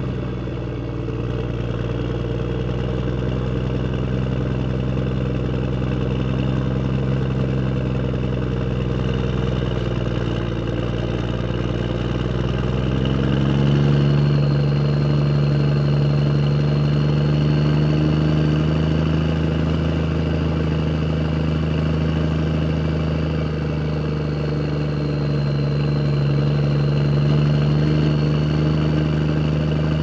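A motor vehicle's engine running steadily at a low, idle-like speed; a little before halfway its pitch rises and it gets louder, then holds at the higher speed with a faint high whine above it.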